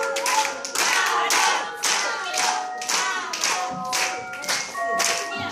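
Many hands clapping in a steady beat, about two to three claps a second, along with a song that has a sung or played melody.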